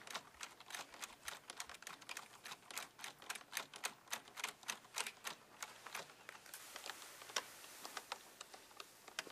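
Typing on a computer keyboard: a quick, irregular run of key clicks that thins out to a few scattered clicks after about seven seconds.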